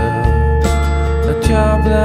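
Background music: sustained melodic notes over a steady bass line.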